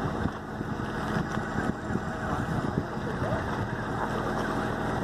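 A vehicle engine idling steadily under a constant noisy rumble, with faint voices in the background.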